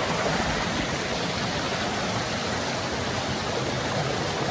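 Steady rushing of river water tumbling over rocks and falls, an even noise without breaks.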